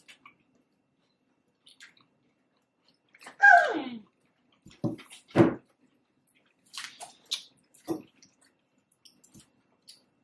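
Close-miked eating sounds from a taco salad: scattered wet chewing and crunching clicks, with a louder wet mouth sound that slides down in pitch about three and a half seconds in.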